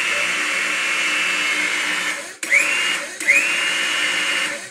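Electric motor of a hydraulic pump running in bursts to drive a ram pressing steel pier pipe into the ground: three runs, each spinning up with a quick rising whine to a steady high whine, then stopping abruptly.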